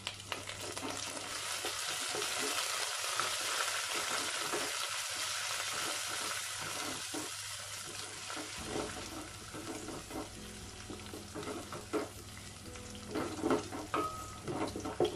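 Onions and fresh mint leaves sizzling in hot oil and ghee in a stainless steel pot while being stirred with a wooden spatula. The sizzle is strongest in the first half and eases off, with the spatula scraping and knocking against the pot several times near the end.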